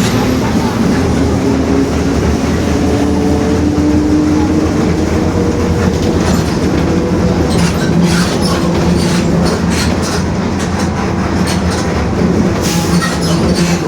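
Mercedes-Benz OF-1721 BlueTec 5 bus under way: its diesel engine runs steadily beneath a growling whine from the differential that rises in pitch a few seconds in, the sign of a worn differential. Body rattles and knocks come thick in the second half.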